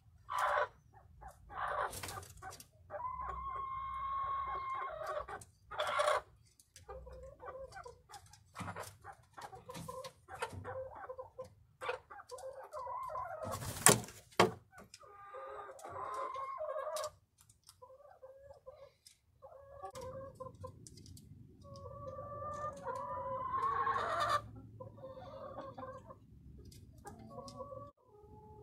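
Domestic hens clucking and calling, some calls drawn out, with scattered scuffling clicks as they hop and settle onto a wooden roost. A single loud, sharp knock sounds about halfway through.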